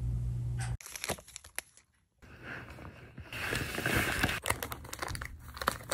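Rustling, crinkling handling noise with scattered clicks and knocks as a laptop is picked up and moved about. A steady low hum cuts off under a second in, and there is a brief silence before the handling noise picks up.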